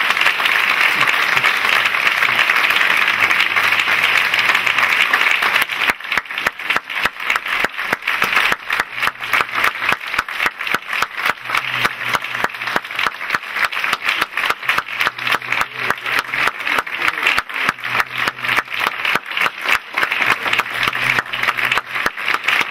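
Theatre audience applauding. About six seconds in, the scattered applause turns into rhythmic clapping in unison, about three claps a second.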